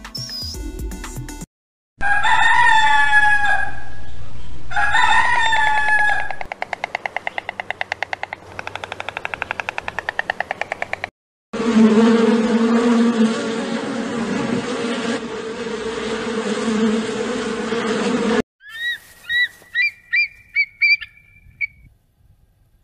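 A rooster crowing twice, followed by other short animal clips: a rapid pulsing call, a long noisy call, and a few quick bird chirps near the end.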